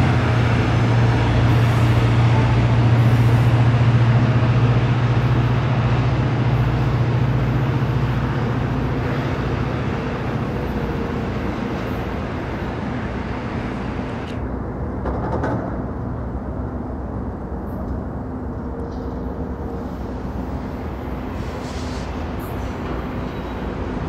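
Two GO Transit commuter trains passing each other: a diesel locomotive's low, steady drone over the continuous rumble and rattle of steel wheels on the rails. The engine drone fades after about nine seconds, and the rolling noise slowly dies down.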